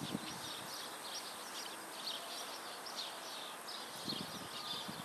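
Birds chirping: a dense, continuous run of short high-pitched chirps and twitters over faint outdoor hiss.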